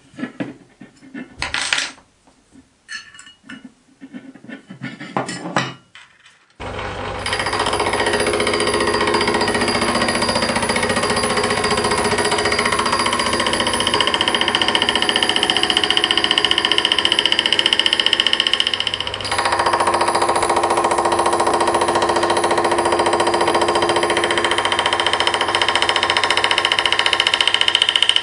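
Light metallic clicks and taps from a hex key and an aluminium block being handled, then about six seconds in they give way abruptly to a Myford lathe running steadily while an aluminium extrusion is machined square. The running sound shifts slightly about two-thirds of the way through.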